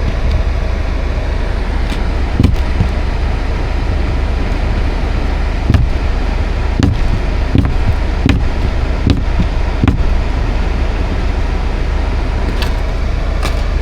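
Pickup truck driving through deep snow, heard from inside the cab: a steady drone of engine and road noise, with scattered short thumps, several coming about three-quarters of a second apart near the middle.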